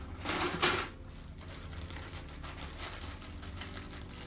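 A short rustle of shopping packaging being handled, about half a second in, followed by faint low room hum.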